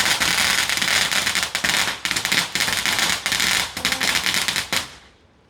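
Fireworks crackling: a dense, rapid crackle of many small pops that dies away about five seconds in.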